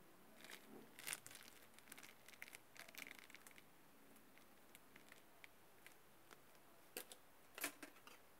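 Faint crinkling and light clicks of handling over a near-silent room, scattered through the first few seconds, with two sharper clicks near the end.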